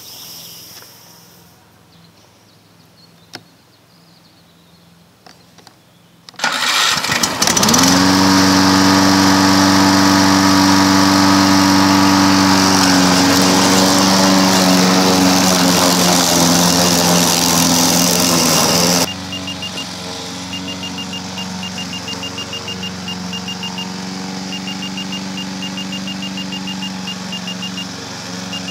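Petrol lawn-mower engine on a radio-controlled self-propelled mower comes in suddenly about six seconds in, rises in pitch and runs loud and steady. About two-thirds of the way through it drops abruptly to a quieter, steady run, with a fast, high, repeated peeping over it.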